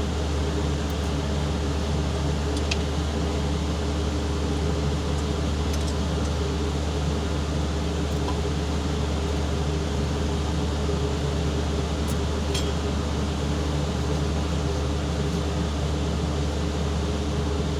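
Forklift diesel engine idling steadily, a constant low hum with a few faint clicks over it.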